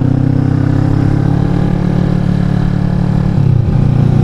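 Kawasaki Vulcan S motorcycle's 649 cc parallel-twin engine running under load while climbing a hill, heard close from the tank. Its note sags slightly, then changes about three and a half seconds in and runs a little louder.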